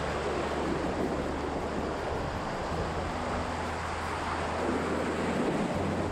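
Rushing water of shallow river rapids, a steady wash and splash around an inflatable kayak as it runs down the riffle.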